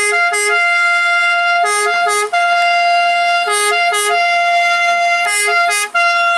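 Italian ambulance siren sounding. A held high note drops twice in quick succession to a lower note, and this repeats about every two seconds.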